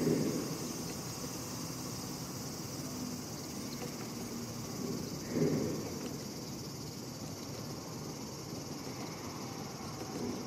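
Insects chirring steadily in a high, even band, with a soft low bump just after the start and another about halfway through.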